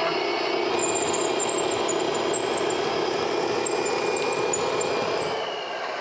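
An RC bulldozer's sound module playing a simulated diesel engine running steadily through a small speaker. The model's electric gear motors whine faintly on and off, and the sound eases off slightly near the end.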